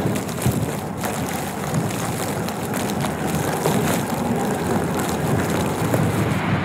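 Diesel freight train running. It makes a steady rushing noise with a low rumble underneath.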